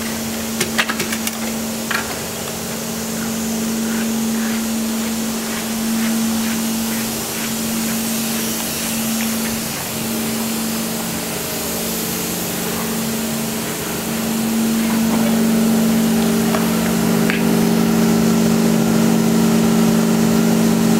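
Down filling machine running with a steady electric hum, getting louder about two-thirds of the way through, with a few light clicks near the start.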